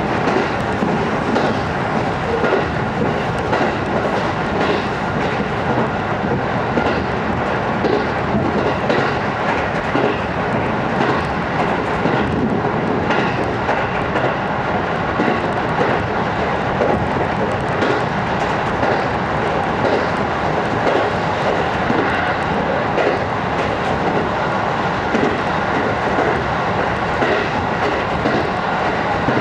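JR 205 series electric train heard from inside the carriage while running at speed: a steady rolling rumble with wheels clicking over the rail joints.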